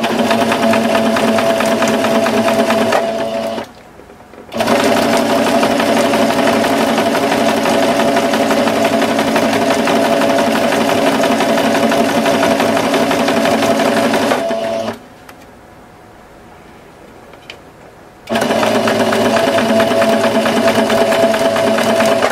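Electric sewing machine running a straight-stitch hem along the edge of a checked fabric napkin. It sews in three runs with short stops between: a brief first run, a long run of about ten seconds, and a final run near the end.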